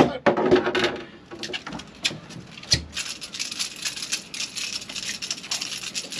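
A small sea bass swung out of the water with a splash, then a run of quick pattering and rattling as the fish flaps and wriggles on the line while being handled and unhooked.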